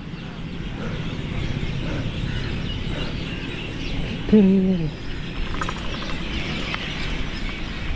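Outdoor ambience: steady background noise with birds chirping, and one short call from a voice about four seconds in.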